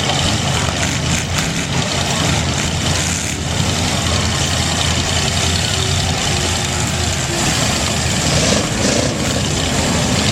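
Demolition derby cars' engines running loud together, a dense steady din with no single event standing out.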